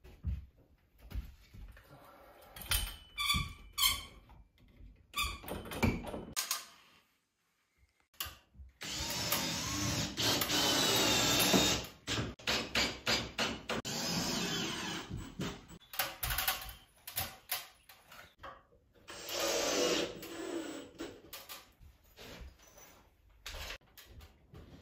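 Cordless drill-driver running in two runs as it drives screws into the wooden framing of a plasterboard dropped ceiling: a continuous whine of about three seconds, and a shorter one a little over halfway through. Sharp knocks and clicks come in between, from boards and battens being handled and set against the ceiling.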